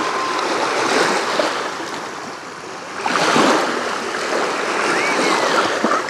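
Small sea waves lapping and washing onto a shallow sandy shore, with one wave surging in louder about halfway through.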